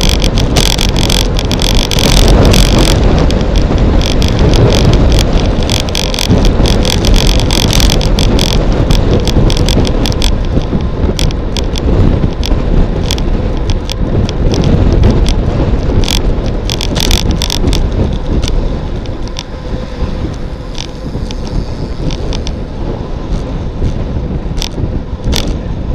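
Wind buffeting an action camera's microphone as a road bicycle coasts downhill at about 40 km/h, with frequent sharp rattling clicks from the bike and camera mount over the road surface. The rushing eases somewhat in the last third as the bike slows.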